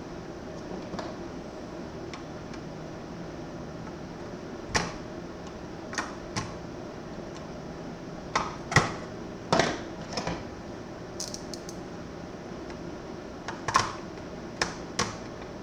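Irregular sharp clicks and clacks of small parts and hardware being handled while an electronics enclosure is taken apart, about a dozen knocks spread unevenly, over a steady low hum.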